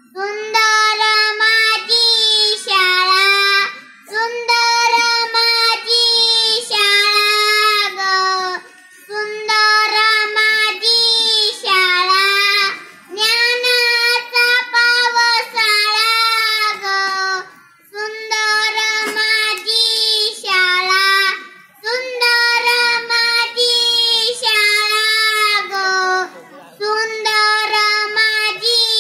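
A child singing solo and unaccompanied, holding high steady notes in phrases a few seconds long with short breaks for breath between them.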